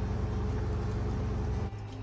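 Nitori NT80J1 washing machine running with a steady low rumble that cuts off suddenly near the end, leaving a quieter hum.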